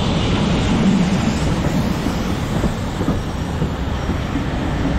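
A train running along the track: a steady, continuous rumble.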